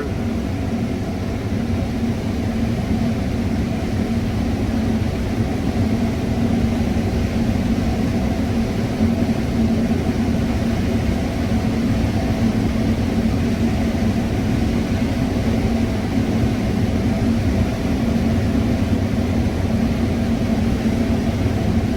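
Combine harvester running steadily while cutting corn, heard from inside the cab: an even drone of engine and threshing machinery with a steady low hum.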